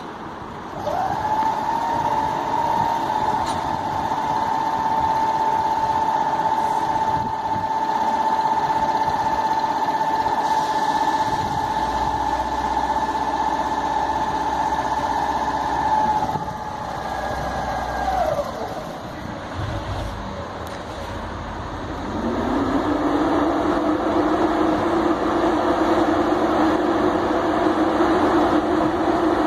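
GBRf class 73 electro-diesel locomotive starting its English Electric 4SRKT diesel engine. A whine rises within the first second, holds steady for about sixteen seconds, then winds down, with a low hum and a knock in between. About 22 seconds in, the diesel fires, its note rises and then settles into a steady, louder run.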